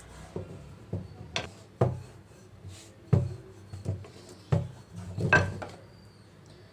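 Wooden rolling pin rolling out puri dough on a tiled counter: a run of irregular knocks with rubbing between them as the pin meets the tiles, the loudest a little after five seconds.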